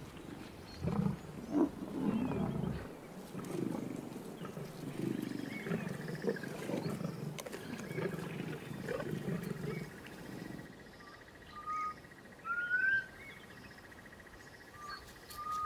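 Lions growling over a freshly killed buffalo calf, a run of low, rough growls with louder bursts. About ten seconds in the growling stops and birds take over with short rising whistled notes over a thin, steady high tone.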